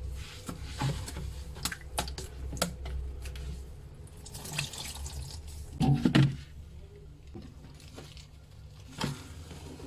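Kitchen items and containers being handled in a series of light clicks and knocks, with a brief rush of running water midway and a louder clatter of knocks shortly after.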